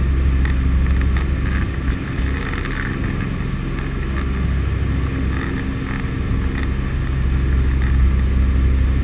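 Aircraft engines droning steadily, heard from inside the transport plane's cabin with a rush of air noise.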